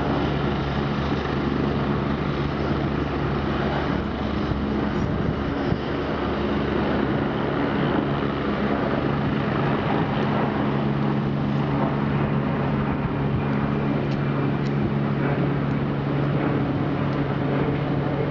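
AgustaWestland AW109 helicopter's twin turboshaft engines and rotors running steadily, a constant drone with a low hum.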